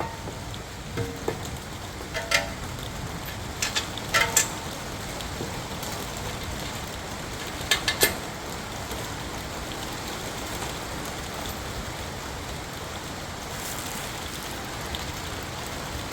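A few sharp metal clinks and clanks as a brake caliper bracket and its bolts are handled and fitted, some with a short ring. They come in the first half, over a steady hiss of workshop background noise.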